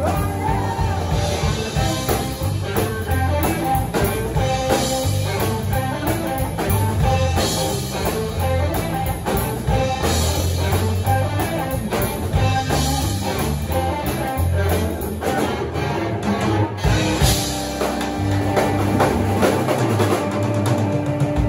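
Live blues band playing an instrumental passage: electric guitar and drum kit, with a tenor saxophone on stage. About seventeen seconds in, the low end thins and a long held note rings over the band.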